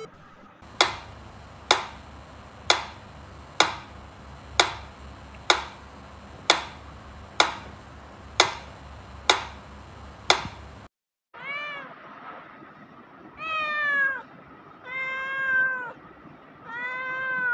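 A mechanical pendulum metronome ticking steadily, about one tick a second, eleven ticks in all. Then the ticking stops and a cat meows four times, each meow rising and falling in pitch.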